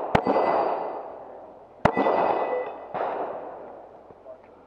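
Pistol shots fired during a practical-shooting course of fire: two sharp reports about 1.7 s apart, then a softer third report about a second later, each trailing off in a long echo.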